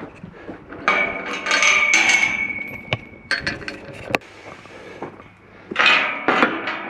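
Galvanised steel livestock gates and hurdles being handled. There is a loud metal clanging with a ringing tone about a second in, a few sharp knocks around four seconds, and another burst of clanging near the end.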